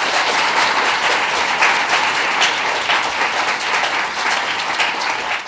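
Audience applauding, a dense patter of many hands clapping that dies away at the very end.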